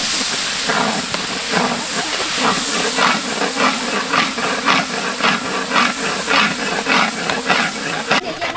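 Oil sizzling in a large wok as chopped aromatics fry, with a metal spatula scraping across the wok's bottom about twice a second.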